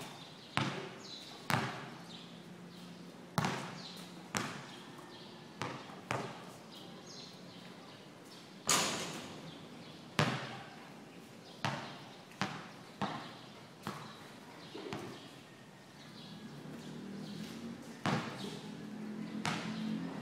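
Basketball hitting a concrete court in single bounces spaced irregularly, roughly a second apart, each with a short echo under the court's roof.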